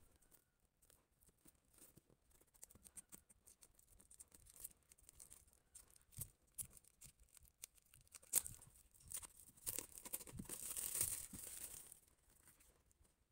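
Faint crinkles and small clicks of plastic shrink-wrap being picked at and peeled off a paperback book, building to a longer stretch of crinkling and tearing about ten seconds in.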